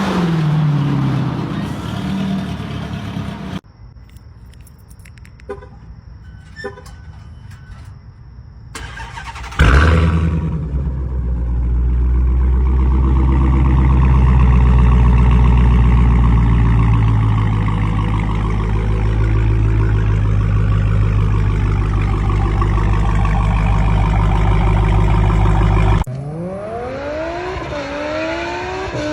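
Dodge Hellcat's supercharged V8: revs falling away, then a few seconds of quieter sound with faint clicks, then the engine firing with a loud bark about ten seconds in and settling into a steady deep idle. Near the end, a run of quick rising revs.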